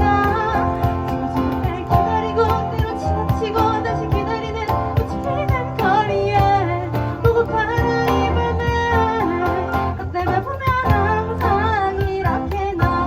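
Live band playing a song: a singer over guitar, bass and keyboard, with the cajon keeping a steady beat.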